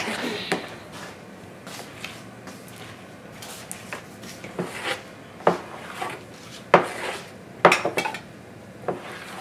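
Metal spoon stirring and mashing thick cream cheese batter in a plastic mixing bowl, breaking up lumps of softened cream cheese, with sharp clicks and knocks of the spoon against the bowl, most of them in the second half.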